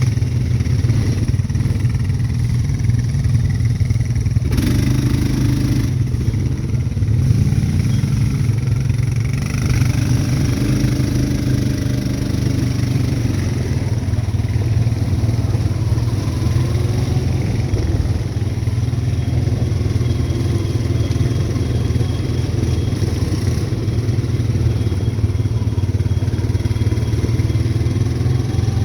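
ATV engine running while being ridden, its note rising and falling with the throttle over a steady low rumble.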